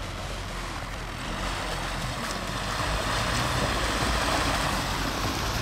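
Mitsubishi L200 pickup's engine running as it drives through mud and slush, the tyres churning and splashing. The churning grows louder over the last couple of seconds.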